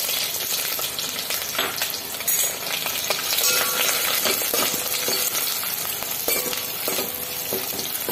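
Sliced onions sizzling in hot ghee in a stainless steel pot, stirred with a metal spoon that clicks and scrapes against the pot now and then.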